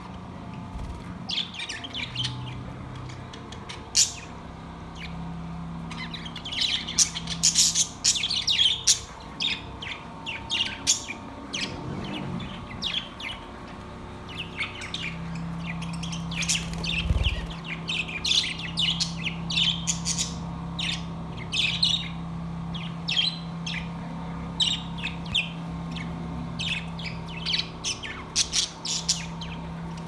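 A flock of budgerigars chirping and chattering: many short, high chirps in quick succession that come in busy clusters.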